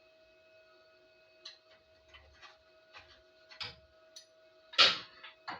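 Scattered clicks and knocks, a few at a time, the loudest about five seconds in, as the clamps holding the welded truck-frame pieces are handled and loosened, over a steady faint hum.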